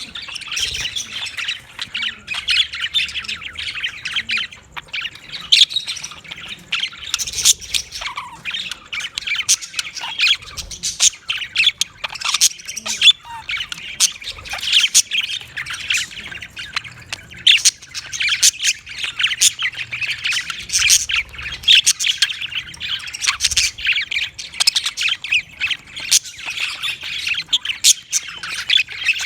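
Budgerigars chattering and squawking without pause: a dense run of quick, sharp, high-pitched calls.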